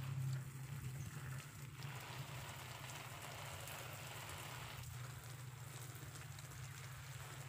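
Water from a garden hose spraying onto plants and ground, a faint even hiss, with a steady low hum beneath it.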